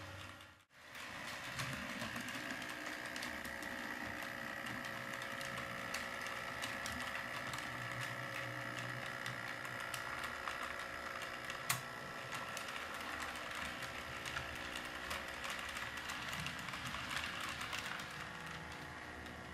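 Model freight train's hopper cars rolling on sectional track: a fast, continuous clicking of wheels over the rail joints, with a steady high whine. A single sharp click about twelve seconds in.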